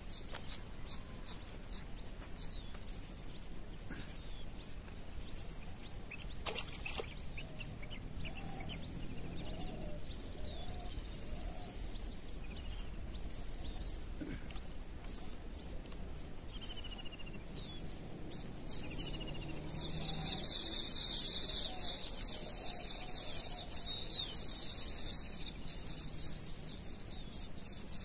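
Small birds chirping and trilling in repeated short high phrases, joined about two-thirds of the way in by a louder, dense, rapid high-pitched chirring of insects.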